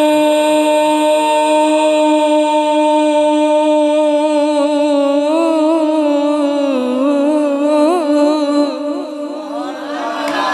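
A man's chanting voice holds one long steady note of a Punjabi devotional verse. About halfway through, the note breaks into wavering melismatic ornaments, and near the end a new phrase begins.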